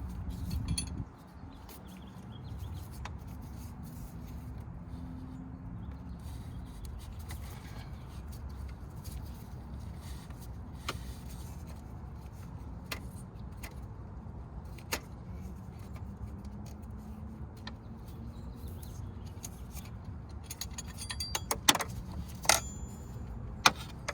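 Scattered metallic clicks and clinks of hand tools against metal engine parts, with a burst of sharper, ringing clinks near the end, over a steady low hum.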